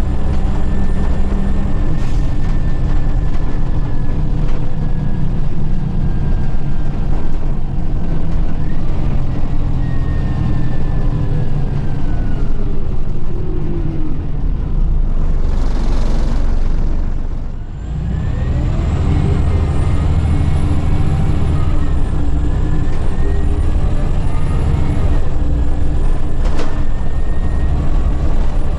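Scania L94UB city bus's diesel engine and drivetrain, heard from the rear of the cabin, a loud steady rumble whose pitch rises and falls as the bus pulls away and changes speed. A little past halfway there is a brief air hiss, the engine note drops away for a moment, then it builds again.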